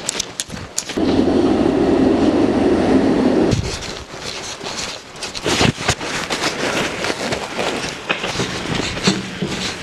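Footsteps crunching on track ballast, with a string of sharp clicks and crunches. A loud rumbling noise starts suddenly about a second in and cuts off sharply two and a half seconds later.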